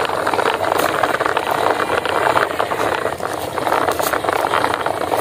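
Plastic toy truck pulled along on a string, its hard plastic wheels rolling and rattling over dry, cracked mud in a steady, gritty rattle.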